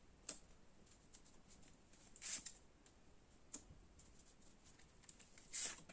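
Near silence: room tone with a few faint clicks and two short, soft rustles.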